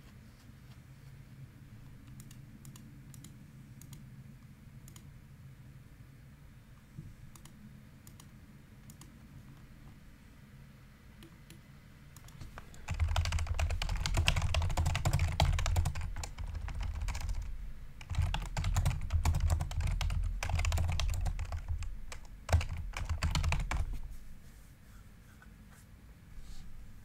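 Fast typing on a computer keyboard in two loud bursts, a few seconds each, starting about halfway through. Before them only a few faint scattered clicks over a low steady hum.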